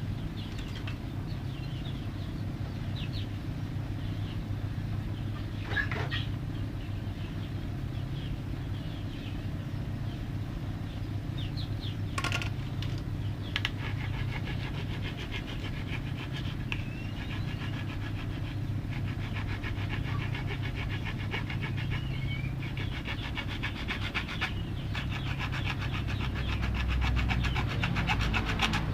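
A steady, even low motor hum, with short high chirps and clicks over it that thicken into rapid clicking in the second half.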